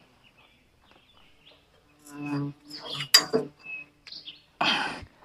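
Scattered bird calls after about two seconds of near quiet, with a sharp click a little past the middle.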